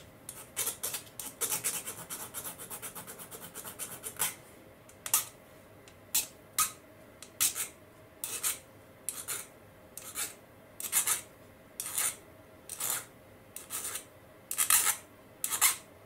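Small hand file rasping across the snipped end of a model wheelset's metal axle, deburring it so it fits the bearing: a quick run of short strokes for the first few seconds, then single strokes about one a second.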